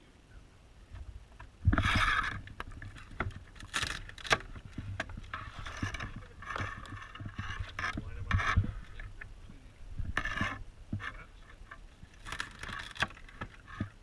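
Dungeness crabs being split on a hinged crab guillotine: a series of short crunching, scraping bursts of cracking shell and the blade knocking on the wooden board, the loudest about two seconds in.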